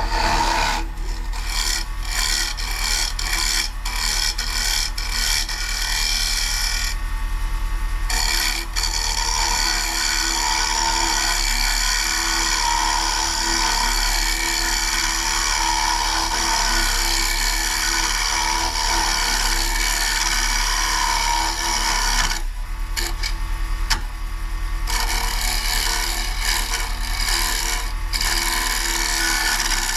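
Carbide turning tool cutting a spinning maple bowl on a wood lathe: a steady scraping hiss over the lathe motor's hum. The hiss breaks off several times in the first few seconds, and again for a couple of seconds about three-quarters through, as the tool comes off the wood.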